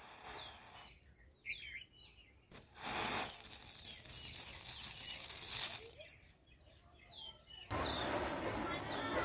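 A small firecracker's fuse hissing and spraying sparks for about three seconds, growing louder, then stopping without a bang. Near the end, a row of matchsticks flares up with a loud, steady crackling hiss. Birds chirp faintly underneath.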